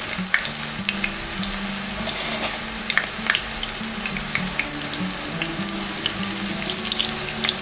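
Zucchini and chicken-breast fritters frying in shallow oil in a frying pan: a steady sizzle dotted with scattered crackles and pops of spitting oil.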